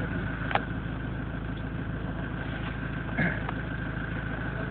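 A vehicle engine idling steadily, with a sharp click about half a second in and a short knock a little after three seconds.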